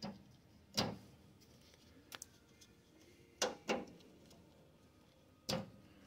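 Short, sharp clicks and knocks, about six in all, as push-on spade connectors are worked off the terminals of an old golf-cart key switch.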